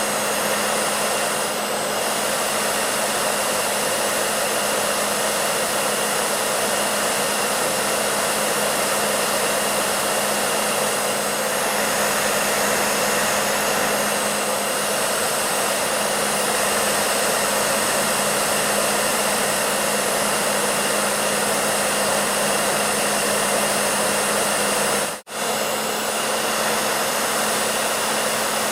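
Hair dryer running steadily: a constant rush of blown air with a low motor hum and a thin high whine, broken by a split-second dropout near the end.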